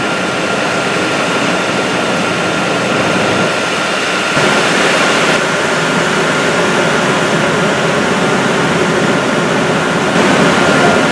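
A 200-horsepower, 1800 RPM induced draft fan and its electric motor running at full speed through a fully engaged Flux Drive sheave coupling. It makes a loud, steady rush of air and machinery with a thin, steady high whine over it.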